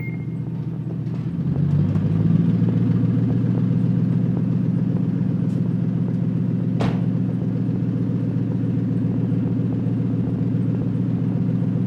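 Car engine idling steadily, its pitch and level stepping up slightly about two seconds in, with a single sharp click about seven seconds in.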